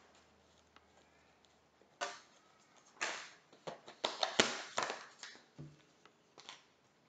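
Tarot cards being shuffled and handled: a short papery rustle about two seconds in, then a run of quick card flicks and snaps for about two seconds that fades near the end.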